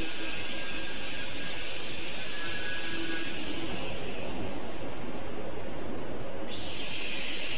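TIG welding arc on stainless steel sheet, a steady hiss with no breaks as the torch runs along the seam.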